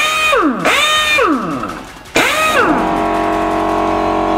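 BJC 1550 pneumatic impact wrench spinning free on compressed air with no socket fitted. Two quick trigger pulls in the first second and a half make its whine jump up and then fall away as it spins down. After a short pause, a third pull about two seconds in settles into a steady, even run.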